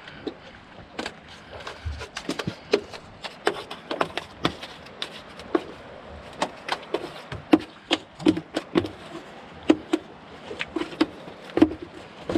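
A busy, irregular run of sharp knocks and taps, a few a second, growing busier after about two seconds in.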